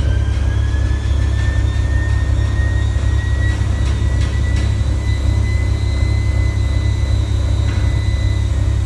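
Jeep Grand Cherokee Trackhawk's supercharged 6.2-litre V8 held at high revs, with a heavy low rumble. The supercharger whine climbs in pitch over the first few seconds and then holds steady.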